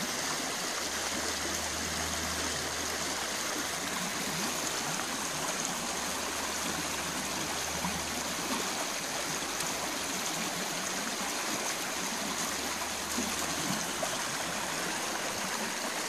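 Small rocky stream flowing over stones in shallow cascades: a steady rush of water.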